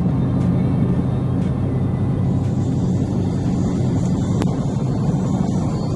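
A car driving on the road, with a steady low drone of engine and road noise.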